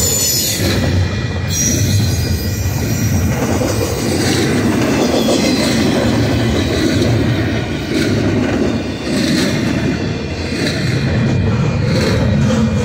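Double-stack container well cars rolling past: a steady loud rumble and rattle of steel wheels on rail, with scattered short clacks.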